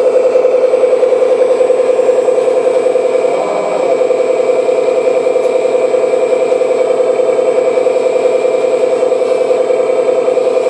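Simulated diesel engine sound from a Beier sound card, idling steadily through a small speaker with a pulsing beat and no deep bass. It briefly dips and changes about three and a half seconds in.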